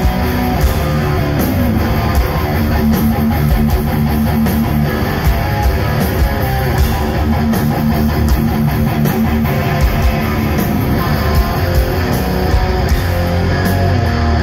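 Live heavy metal band playing loud distorted electric guitars, bass and drums through an outdoor stage PA, heard from within the crowd.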